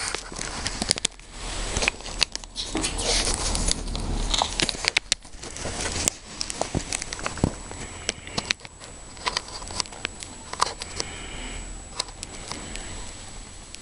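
Irregular clicks, taps and rustling close to the microphone, over a low steady hum.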